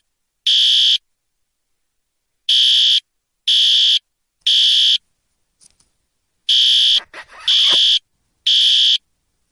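Fire alarm sounding: loud, high-pitched beeps about half a second long, repeating about once a second, with two short pauses in the pattern.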